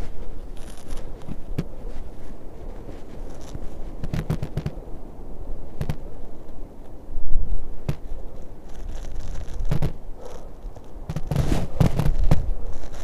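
Wind rumbling on a phone microphone outdoors, broken by scattered crackling knocks that come in small clusters a second or two apart.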